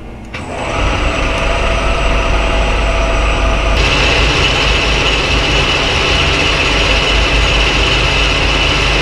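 Clausing metal lathe starting up and running steadily, its motor and gear train humming with the threading lead screw engaged. About four seconds in, a higher hiss joins the running noise.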